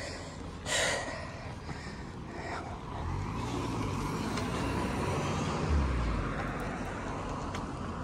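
A small car, a Fiat 500, drives slowly past, its engine note rising and then falling between about three and six seconds in, loudest just before it fades. A short breath-like puff comes about a second in, over a steady hiss throughout.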